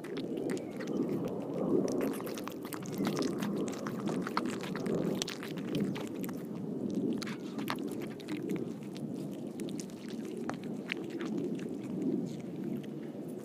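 Cats chewing and licking carp and cat food off a PVC foam-board tray, picked up close by a microphone clipped to the tray, with many small sharp clicks from teeth and tongues throughout.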